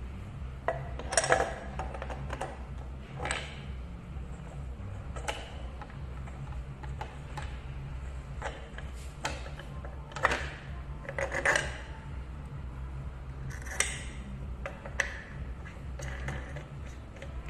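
Scattered knocks and clacks of hard parts being handled as the flange disc of a taping machine's film reel holder is taken off and refitted on its threaded spindle, with its clamping knob turned.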